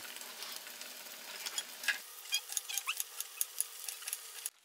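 Chicken breast fillets frying in a pan of oil, a steady sizzle with many small crackles and pops, along with a knife cutting mango on a ceramic plate.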